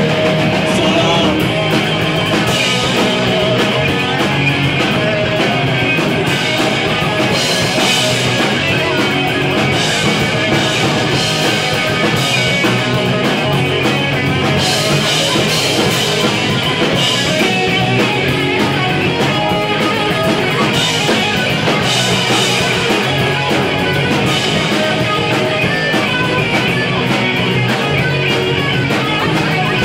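Live rock band playing loud and continuously: electric guitars and a full drum kit with cymbals.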